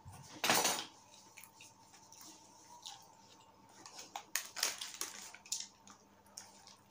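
A fork scraping and clicking in an aluminium foil tray of lasagna, with small mouth sounds of eating close to a clip-on microphone. A brief burst of noise comes just after the start, and the clicks and scrapes are busiest about four to five and a half seconds in.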